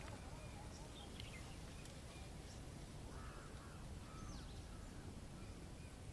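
Faint bird calls, a few high chirps and two short arched calls, over a steady low rumble of outdoor ambience.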